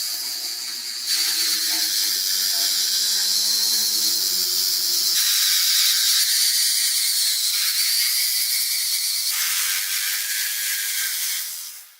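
Loud, steady hiss of a high-pressure spray from a car-cleaning tool. Its tone changes abruptly about a second in, around five seconds and around nine seconds, and it drops away just before the end. A faint motor hum runs under the hiss for the first five seconds.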